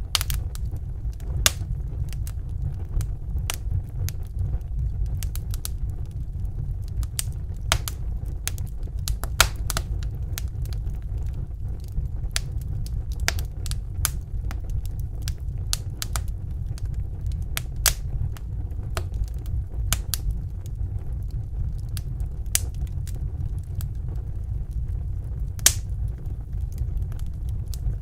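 Wood fire in a fireplace crackling: irregular sharp pops and snaps, some louder than others, over a steady low rumble of the flames.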